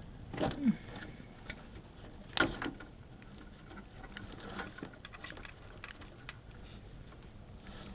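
Scattered clicks and knocks of hand tools and metal fittings on the 340 small block as the old oil pressure line is worked loose. The sharpest knock comes about two and a half seconds in.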